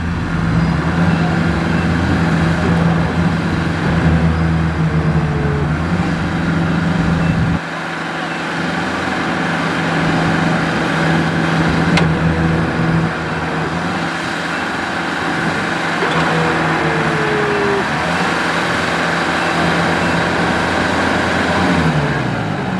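Diesel engines of a Kubota tractor stuck in paddy-field mud and a rice combine harvester beside it, running steadily. About eight seconds in, the deep part of the engine rumble drops away abruptly.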